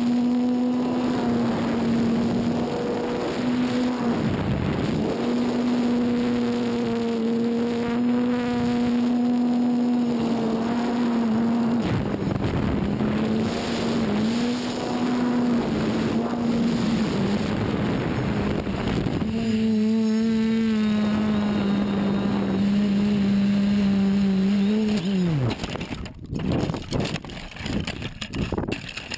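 A quadcopter's four Tiger Motor AT2216 brushless motors with 10-inch APC slowfly props, heard from onboard as a steady buzz that dips briefly a few times with the throttle. About 25 seconds in, the pitch drops away as the motors stop, then come a few seconds of knocks and rustles as the quad crashes down through tree branches in a hard landing.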